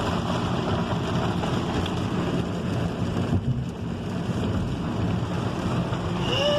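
Inside a moving car in a downpour: a steady hiss of heavy rain and wet tyres on the road over a low, even hum of the car.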